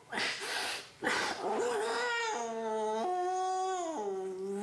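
A man's voice doing Gollum's voice: two short rasping, breathy gasps, then a long strained whimpering wail, like crying, that shifts pitch in steps and drops about four seconds in.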